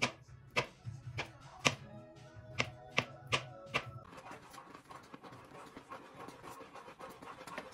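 A kitchen knife slicing a banana, its blade tapping down on a plastic cutting board about eight times at an uneven pace, over background music. After about four seconds the taps stop and only the music carries on.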